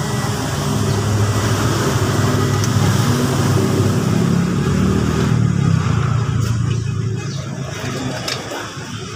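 Toyota HiAce Commuter's four-cylinder common-rail diesel engine running with its engine cover off, test-run after a timing belt replacement. The engine sound swells through the middle and eases off toward the end.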